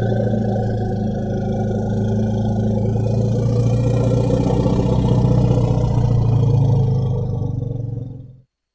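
Elephant call used as a creature sound effect: one long, low, steady call that cuts off near the end.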